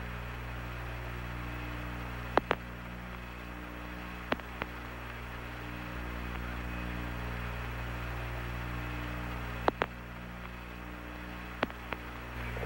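Steady electrical hum with hiss on an air-to-ground radio audio channel, broken by a few sharp clicks, several in quick pairs.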